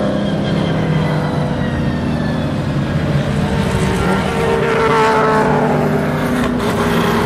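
Grand-Am race cars, Daytona Prototypes and a GT car, passing at speed one after another, engines at high revs. The engine notes overlap and fall slightly in pitch as the cars go by, with the loudest pass about five seconds in.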